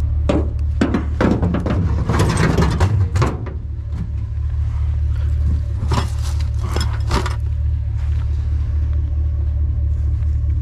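A pickup truck's engine idling with a steady low hum, under knocks and clatter as a wicker chair is set into the truck bed during the first few seconds and a plastic tub is picked up a little past halfway.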